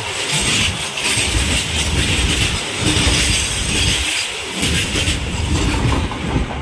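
Freight train of covered wagons rolling past close by: a continuous rumble and clatter of steel wheels over the rails, with rapid irregular clicks from the wheels crossing rail joints.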